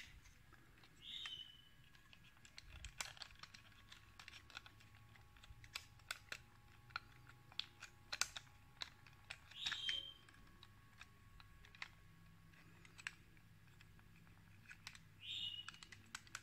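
Scattered small clicks and snaps of a GX-40R Godmars toy robot's metal joints and plastic parts as it is unfolded by hand. Three short high chirps come about a second in, near the middle and near the end, over a faint steady hum.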